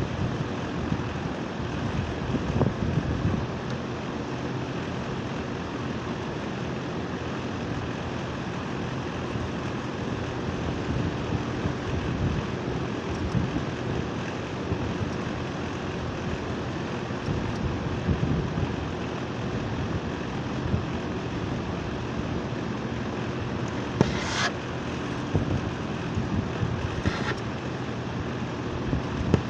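Split-type air conditioner's outdoor unit running: steady hum of the compressor with the rush of air from the condenser fan. Two brief sharp clicks sound near the end.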